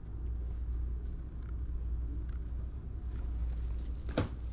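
Steady low hum, with faint rustles of trading cards being handled and one sharp click near the end.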